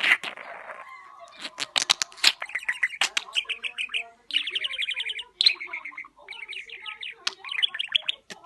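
Pet budgerigar warbling and chattering: rapid trilled chirps mixed with many sharp clicks, going on throughout with short breaks.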